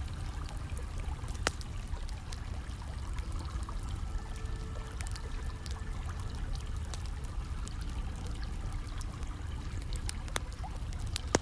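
Steady sound of hot-spring water pouring and trickling into an outdoor bath. A few sharp crackles of a wood fire break through it.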